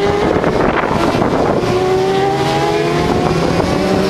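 Racing superbikes (600–1000cc) passing at speed, their engines revving high and climbing in pitch as they accelerate. Several engines overlap, and one fades out before others rise again.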